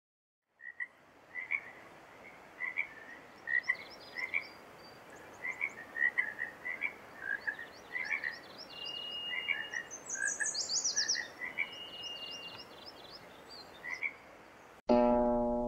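Frogs calling in a chorus: many short calls repeated irregularly, with a few higher bird calls, among them a quick falling trill about ten seconds in, over a faint steady hiss. Plucked-string music comes in near the end.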